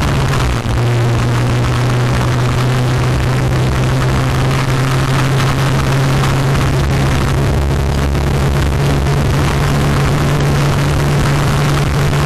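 Motorcycle engine running at a steady cruising speed, a constant low drone, with wind rushing over the microphone.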